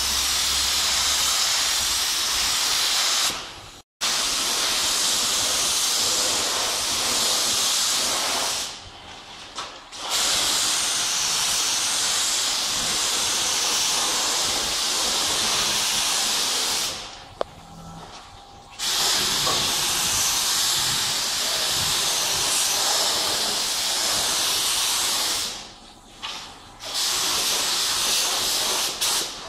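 Gravity-feed compressed-air spray gun hissing steadily as it sprays lacquer onto a wooden boat hull. The hiss stops for a second or two four times as the trigger is released, then resumes.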